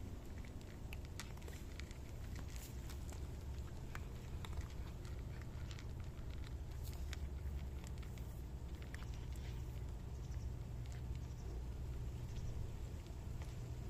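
Cats crunching dry kibble from a bowl: irregular, crisp crunches, several a second, over a steady low rumble.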